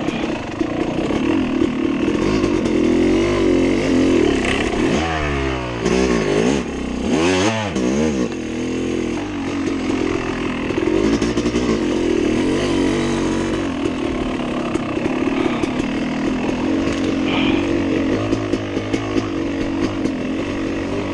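Yamaha YZ250X two-stroke dirt bike engine running on a tight trail under constantly changing throttle. Twice, about five and seven seconds in, the revs drop away and climb back up.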